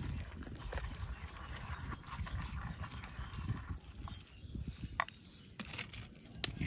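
Stone pestle pounding chilies and garlic in a stone mortar: a run of dull, repeated thuds that thins out about four seconds in.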